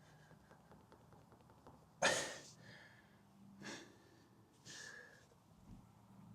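Three short breathy sounds, like exhales or snorts. The first comes suddenly about two seconds in and is the loudest; the next two are fainter.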